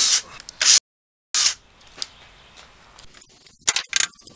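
Cordless drill boring into a pine block in two short, loud spurts that cut off abruptly into dead silence. Near the end come a few sharp knocks of wooden blocks being handled.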